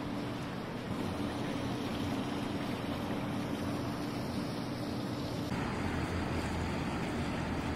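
Steady outdoor downtown street ambience: a low rumble of traffic mixed with wind noise. The sound shifts to a deeper rumble with less hiss about five and a half seconds in.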